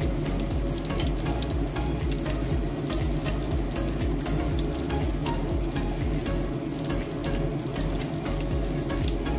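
Shrimp-stuffed tofu (tahu walik) sizzling in a shallow layer of oil in a frying pan: a steady hiss with many small crackling pops. The pieces are fried crisp and nearly done.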